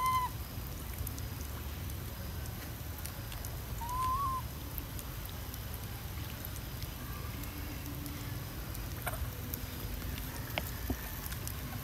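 Steady low outdoor rumble with two short whistle-like calls, one right at the start and one rising and falling about four seconds in, and a few faint clicks.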